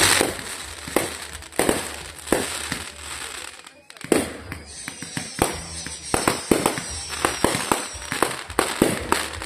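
Fireworks going off: separate bangs and crackles, quieting briefly about four seconds in, then a quicker run of sharp reports.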